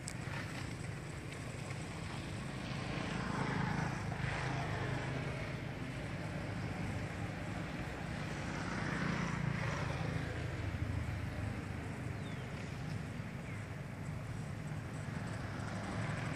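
Wind buffeting the microphone as a steady, fluttering low rumble, with a broad hiss that swells twice, about four and nine seconds in.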